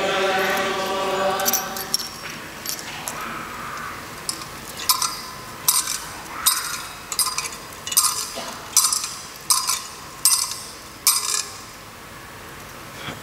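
A brass thurible is swung on its chains to incense the Gospel book, clinking sharply in an even rhythm, about nine strokes a little under a second apart. At the start, a choir holds the last chord of its sung response, which fades out within the first two seconds.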